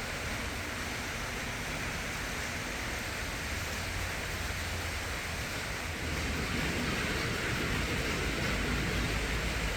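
Honglan 400 mm mini ceiling fan running: a steady rush of moving air with a low motor hum, a little louder from about six seconds in.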